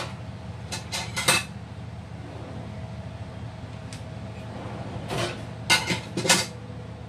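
Kitchen clatter: dishes and utensils being handled and set down, a few clinks and knocks about a second in and a longer cluster from about five seconds, over a steady low hum.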